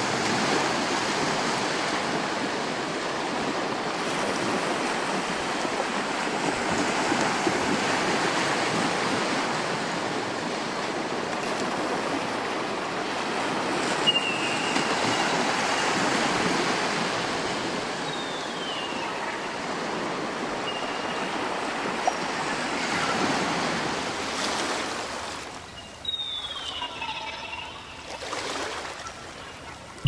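Ocean surf washing in steadily, with a few short falling bird cries over it from about halfway on. The surf thins out over the last few seconds.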